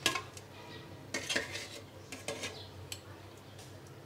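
Metal spoon stirring chicken curry in a metal pot, with a few sharp clinks and scrapes against the pot's side.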